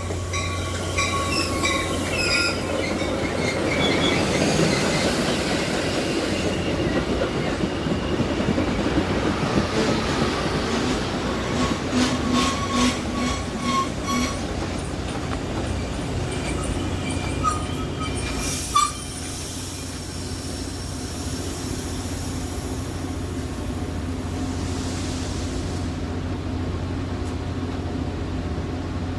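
Metra commuter train rolling to a stop, its wheels squealing over a rumbling run and a steady low hum. A short, sharp burst comes about nineteen seconds in, and after it the train stands with only a steady hum.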